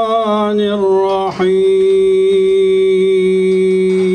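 A man chanting a Quranic recitation in the melodic tajwid style. He sings a wavering, ornamented phrase, breaks briefly about a second and a half in, then holds one long steady note.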